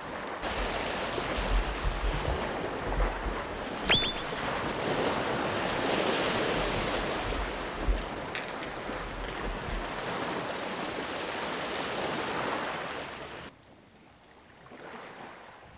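Sea waves washing and breaking against a rocky shore, with wind rumbling on the microphone. A brief sharp high sound comes about four seconds in, and the surf noise drops away sharply near the end.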